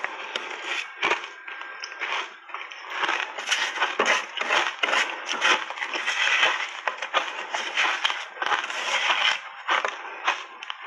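Shaved ice coated in matcha powder crunching between the teeth in big bites: a dense, unbroken run of sharp cracks and crackles, with brief lulls about two seconds in and near the end.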